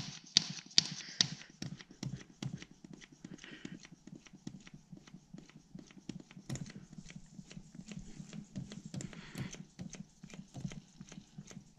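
Hand priming pump on a Zetor 16045 tractor's diesel fuel system worked in quick strokes, a run of sharp clicks and knocks, loudest in the first second or so. It is pumping fuel to bleed air out of the lines through a slackened bleed screw, with brief hissing twice.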